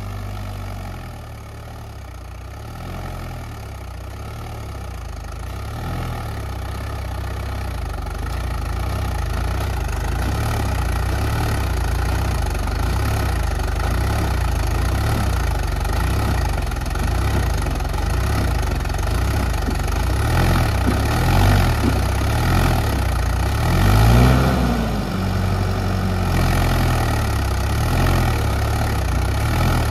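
Swaraj 843 tractor's diesel engine running, growing gradually louder, with the engine note rising and falling a couple of times near the end.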